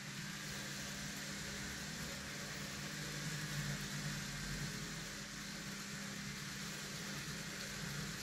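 N gauge model train running on the track helix: a steady whir from its small electric motor and wheels rolling on the rails, a little louder for a moment around the middle.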